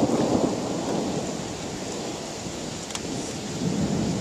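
Thunder rumbling in a heavy thunderstorm. It is loudest right at the start, eases off through the middle, and swells again near the end, over a steady hiss of rain.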